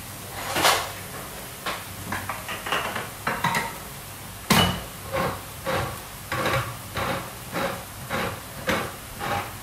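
Hand-held can opener cranked around a tin of tomatoes: a few sharp knocks, then from about halfway an even run of short clicking strokes, about two a second. Onions faintly frying in a wok underneath.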